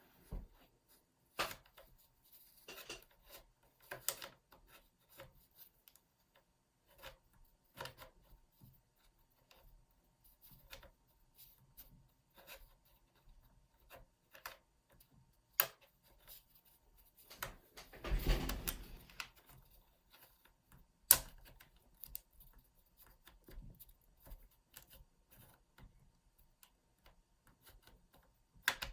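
Scattered small plastic clicks and taps as a laptop's case and clips are worked at with a pry pick, with a brief scraping rub about eighteen seconds in and a sharp click about three seconds later.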